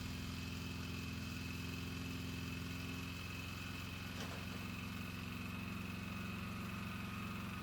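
Polaris Sportsman 400 HO's single-cylinder four-stroke engine running at a steady speed in high gear, turning the rear wheels.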